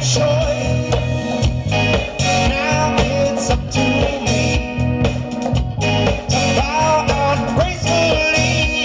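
A 1970s yacht-rock band recording playing, with a steady drum-and-bass beat under a melodic lead line.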